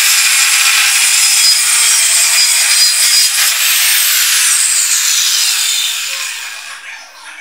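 Corded circular saw ripping through a plywood board with a loud, steady high whine and rasp. About four seconds in, the whine rises briefly as the blade clears the board, then falls away as the motor winds down.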